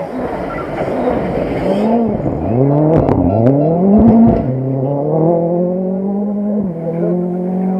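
Rally car engine passing at speed: the revs swoop up and down sharply several times, with a few short cracks. Then the engine pulls away, its pitch climbing steadily, with one gear change near the end.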